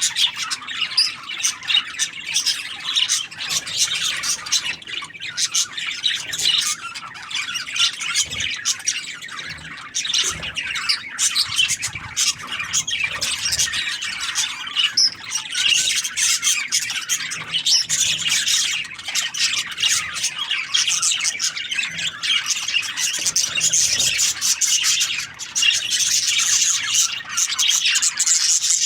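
Budgerigars chattering: a continuous stream of quick, high chirps and squawks with no pauses.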